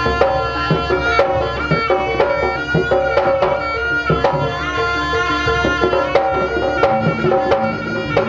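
Kuda kepang accompaniment music: a traditional Javanese-style ensemble playing a held, many-overtoned melody over frequent hand-drum strikes.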